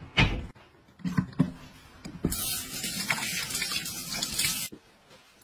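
A thump just after the start and a few light knocks, then tap water running from a faucet onto hands over a sink from about two seconds in, stopping abruptly shortly before the end.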